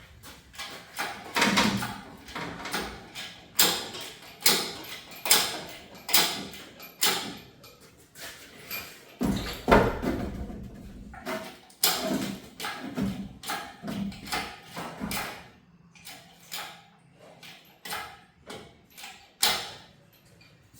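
Irregular metal clanks and knocks from hand tools and parts being worked while a transmission is being unbolted from the engine, roughly one or two a second, the loudest knock a little under halfway through and fewer, quieter ones near the end.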